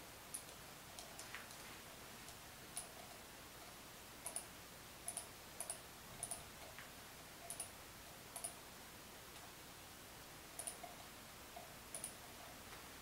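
Computer mouse button clicked about a dozen times at irregular intervals, many clicks coming as a quick double click of press and release.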